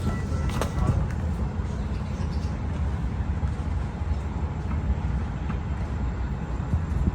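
A vehicle's steady low rumble, with a few faint clicks about a second in.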